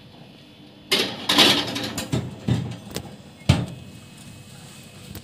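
A metal baking pan slid into a countertop electric oven onto its wire rack: a loud scraping clatter about a second in, then a few sharp metallic knocks, the loudest about three and a half seconds in.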